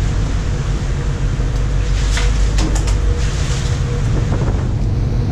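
Steady low rumble of a small cargo ship's machinery, with wind on the microphone. A few short scrapes and a swish of water on the steel deck come about two to three and a half seconds in.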